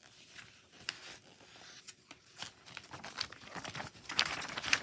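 Paper and packaging being handled, rustling and crinkling in irregular bursts that grow busier and louder toward the end.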